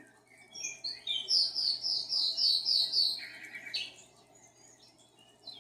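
Budgerigar chirping: a quick string of high chirps with a fast run of repeated notes, then a short buzzy note, falling quiet after about four seconds.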